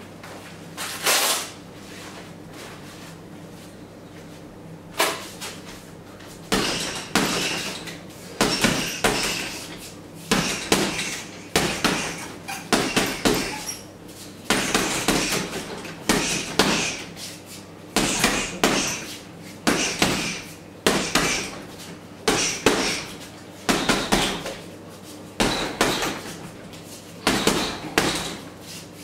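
Boxing gloves punching a heavy bag. The strikes come in quick combinations of two to four sharp smacks, with a short gap between each burst, steady from a few seconds in.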